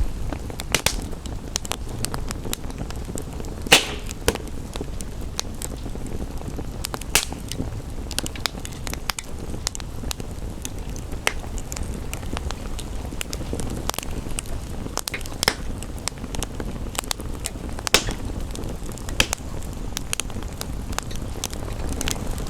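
Wood fire crackling, with irregular sharp pops (the loudest about four seconds in and again near eighteen seconds) over a steady rushing background of rain.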